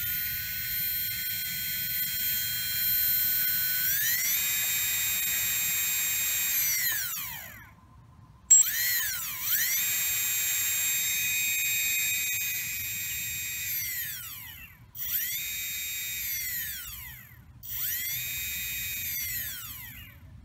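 Brushless quadcopter motor (AX-2810Q-750KV) spinning with no propeller under its speed controller, a high electric whine that rises and falls in pitch as the throttle is moved. It winds down and stops once, then spins up again and is eased down and back up a few times. The motor runs normally when fed straight from the receiver's throttle channel.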